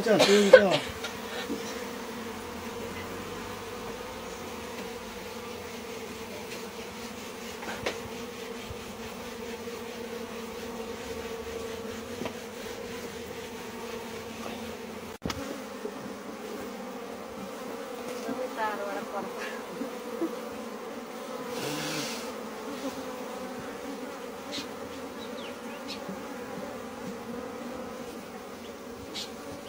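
A dense swarm of honey bees clustered over an open hive box, humming steadily from the beating of many wings, briefly louder at the very start.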